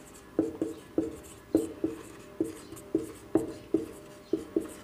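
Marker pen writing on a whiteboard: a quick, irregular string of sharp taps, about three a second, as each stroke of the marker knocks against the board, with a short ring after each.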